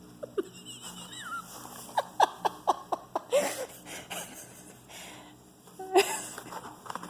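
A person laughing: a quick run of about six short, loud bursts, roughly four a second, about two seconds in, with a sudden loud burst near the end.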